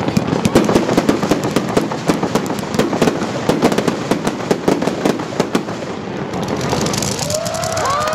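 Aerial fireworks crackling: a dense, rapid stream of sharp pops from crackling-star shells. Near the end the crackle thins into a hiss with a rising whistle.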